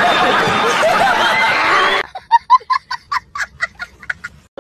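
A crowd laughing loudly for about two seconds, which cuts off suddenly. Then one person laughs in a rapid, high-pitched cackle of short ha's, about four or five a second.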